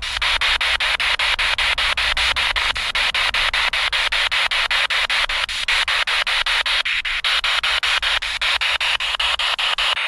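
Loud, steady electronic static hiss, chopped by regular short breaks about seven times a second.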